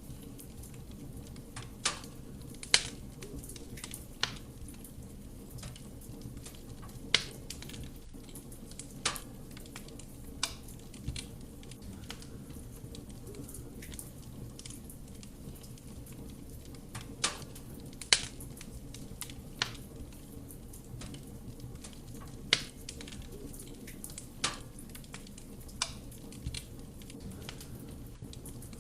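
Wood fire burning in a fireplace: a steady low rumble of flame with sharp crackles and pops of the burning wood every second or two.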